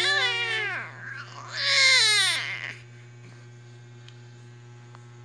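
Toddler crying in two wails, each falling in pitch, the second louder, over a steady low hum.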